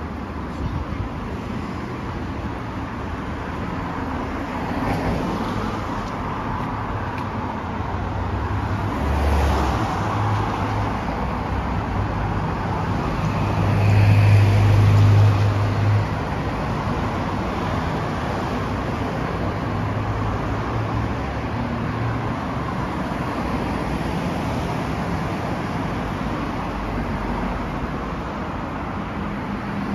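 City street traffic: cars and other motor vehicles running by in a steady wash of road noise. One heavier vehicle with a low engine hum is loudest about halfway through.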